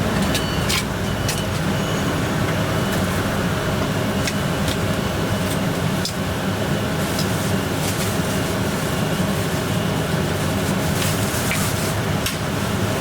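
Steady low roar of a commercial kitchen's exhaust hood and gas burners, with scattered sharp clinks of metal utensils and cookware.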